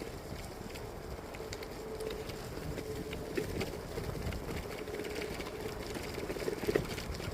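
Bicycle wheels rolling along a trail: a steady rumble from the tyres on the surface, with a faint even hum and scattered small clicks and ticks from grit under the tyres.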